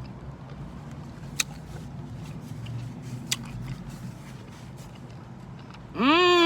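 Bubblegum being chewed, soft wet mouth sounds with a couple of sharp clicks. About six seconds in, a loud pitched voice sound rises and falls in pitch and runs on past the end.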